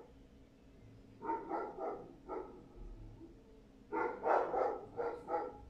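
A dog barking in two runs of short barks, a few a little after a second in and a louder run about four seconds in.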